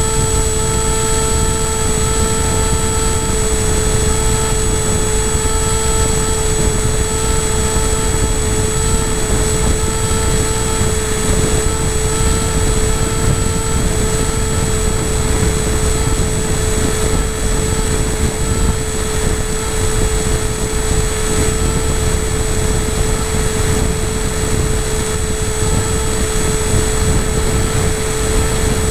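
A model aircraft's motor and propeller whining at a steady pitch, heard from the camera on board, with wind rushing over the microphone underneath.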